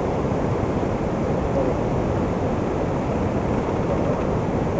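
Steady, dense roar of Duduma Waterfall, a large waterfall in rainy-season flow, heaviest in a low rumble.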